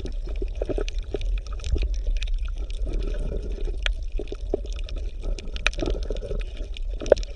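Sea water lapping and sloshing among concrete breakwater blocks, with many irregular small splashes and clicks.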